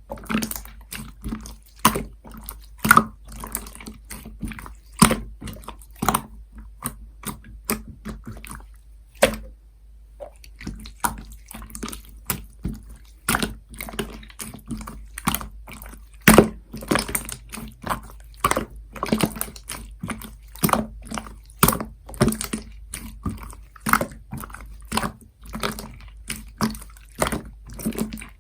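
Light-yellow clear slime being squished and pressed by hand, making wet, sticky pops and clicks at an irregular pace of about two or three a second, with a brief pause about ten seconds in.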